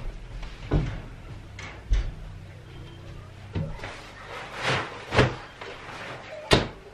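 Household handling noises: about five short dull knocks and thumps, with a longer rustling swish a little past the middle, as a fabric bean bag chair is grabbed, lifted and set down.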